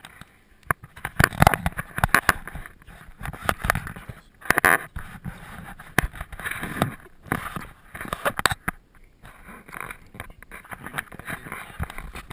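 Close handling noise on a GoPro camera: irregular knocks, scrapes and rustles as hands and a strap rub against it while it is fastened to a dog's lifejacket.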